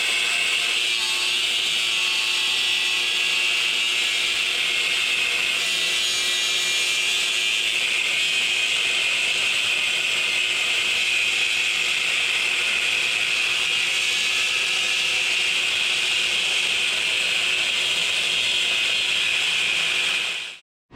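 A power tool running steadily on metalwork, a loud even hiss that cuts off suddenly near the end.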